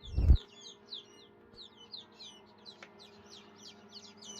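Newly hatched quail chicks peeping, many short high chirps overlapping throughout, over a steady low hum. A single loud low thump at the very start.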